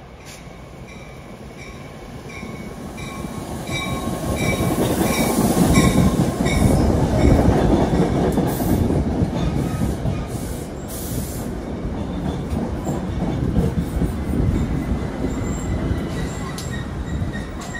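Commuter train with Comet coaches passing close by, its wheel rumble building to a peak about six seconds in and staying loud. A quick, evenly repeated high ding sounds through the first seven seconds, and a thin steady wheel squeal comes in near the end.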